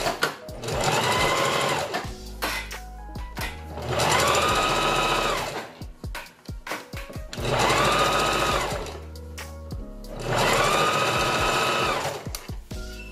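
Electric sewing machine stitching hair wefts onto a wig cap, run in short bursts of one to two seconds with pauses between: each time the motor whine rises in pitch as it speeds up, holds, then drops away as it stops.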